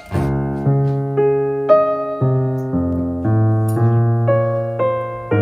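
Background piano music: a simple melody with a new note or chord about twice a second, each fading until the next.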